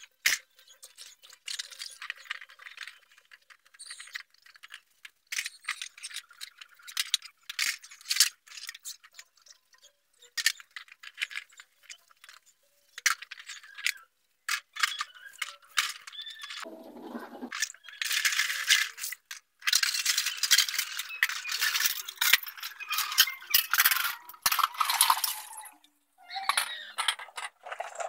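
Dishes washed by hand in plastic basins: irregular clinking and clattering of plates and cups with scrubbing noise, busiest for several seconds past the middle.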